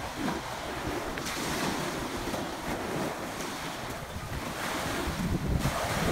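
Small waves breaking and washing up onto a sandy shore, with wind buffeting the microphone, stronger near the end.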